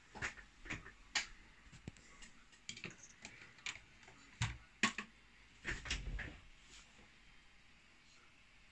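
Handling noise from a handheld camera being moved: irregular clicks and taps, with a couple of heavier dull thumps about halfway through.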